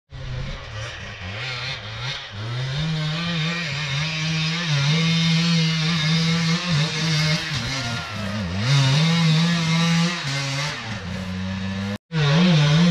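Two-stroke enduro dirt bike engine running under varying throttle, its pitch rising and falling in short blips. It cuts out for an instant near the end, then comes straight back.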